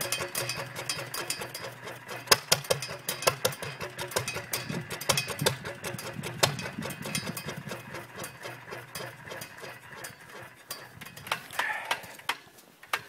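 International Harvester 5 hp engine on a homebuilt tractor running with a quick, uneven clatter of firing beats. The beats get quieter and sparser over the last few seconds.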